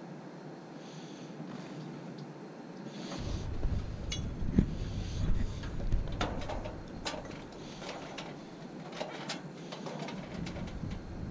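Hands working on HVAC line-set fittings: a scatter of sharp clicks and knocks over a low rumble from about three seconds in until near the end, with soft breathing before it.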